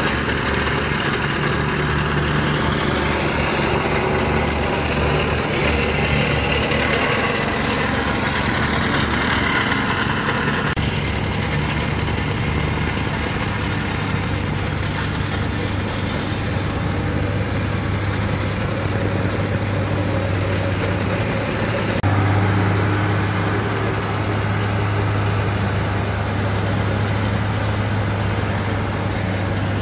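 A plate compactor's small petrol engine running for about the first eleven seconds. After a cut, a wheel loader's diesel engine runs as the loader carries and moves earth, with a steady low hum that grows stronger after another cut about 22 seconds in.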